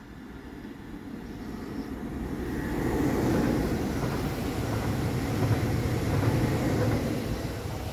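A train passing. The rumble grows over the first three seconds, stays loud and then fades near the end.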